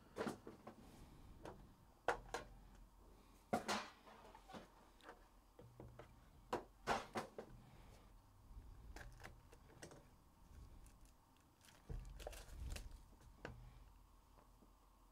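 Faint, scattered clicks, taps and scrapes of a metal Upper Deck The Cup hockey card tin being opened and the black box inside it handled and set down on the table.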